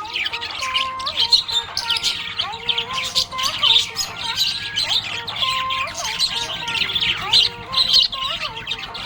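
Budgerigars chirping and warbling in a busy, continuous stream of quick chirps, with some longer held whistling notes that step up and down in pitch.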